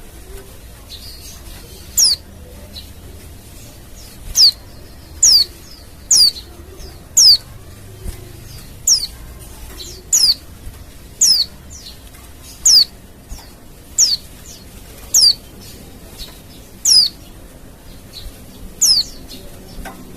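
Female white-eye (pleci) calling: a series of loud, short, high notes that slide downward, about one every second or so, starting about two seconds in. It is the kind of female call played to draw out and stir up other white-eyes.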